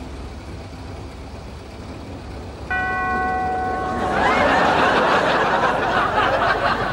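Small car engine idling low, then a steady electronic tone sounds suddenly about three seconds in for a second and a half, followed by studio audience laughter that is the loudest part.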